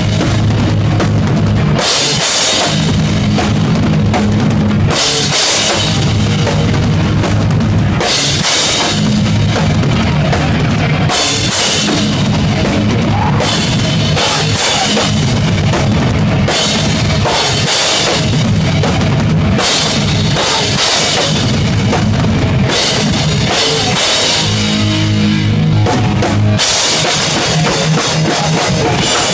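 Hardcore punk band playing live and very loud: pounding drums with crashing cymbals close up, distorted electric guitar and bass. The playing comes in hard-hitting sections, the cymbal wash dropping out and coming back several times.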